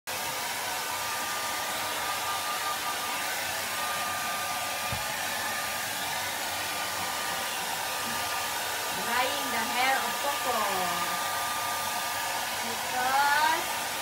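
Handheld hair dryer blowing steadily: a constant rush of air with a thin, high whine. Twice, about nine and thirteen seconds in, a short voice-like sound rises over it.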